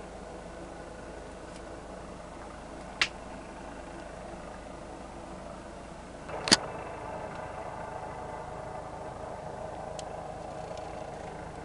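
Distant helicopter droning steadily. Two sharp clicks come about 3 and 6.5 seconds in, the second louder, and the drone is a little louder after it.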